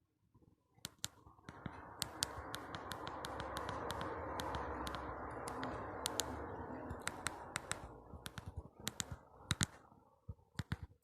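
Many sharp clicks of a Fly FF179 mobile phone's keypad buttons being pressed at irregular intervals, as the phone's menu is stepped through, over a steady noise that builds and then fades.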